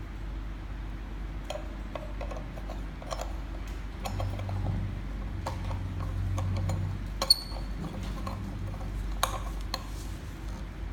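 Scattered clicks and light clinks of hard shower-head parts being handled and fitted, with one sharp metallic clink that rings briefly about seven seconds in.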